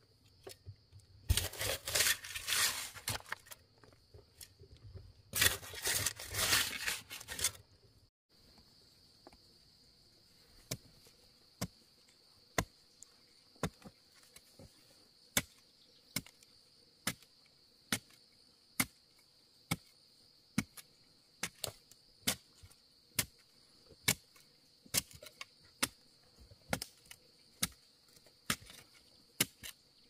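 Two rough, noisy bursts of about two seconds each, then after a sudden change, sharp chopping strikes about once a second over a steady high trill of insects.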